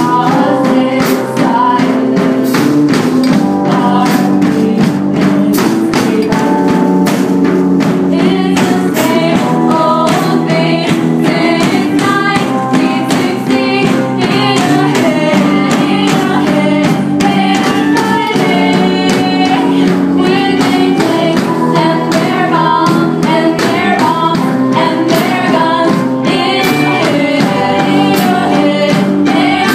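Live student rock band playing loudly, with drum kit, electric guitar and keyboards, while two female singers sing the melody into microphones. Drum hits keep a steady beat throughout.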